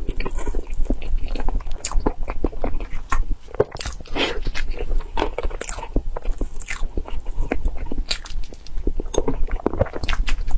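Close-miked mouth sounds of eating cream cake: wet chewing and lip smacks in a dense run of short clicks.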